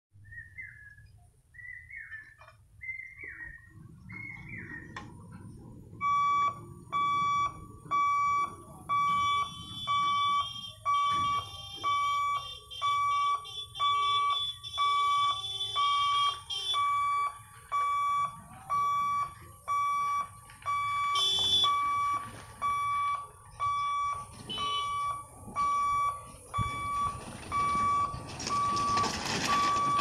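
Level-crossing warning buzzer beeping at one steady pitch about once a second, starting some six seconds in, signalling that the boom barrier is closing for an approaching train.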